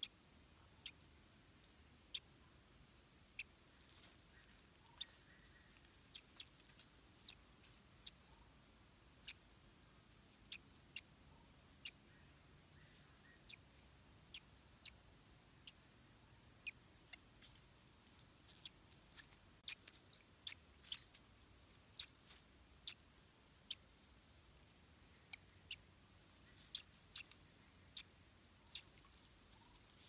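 Near silence broken by scattered, irregular sharp ticks and clicks, more frequent in the second half, over a faint steady high whine.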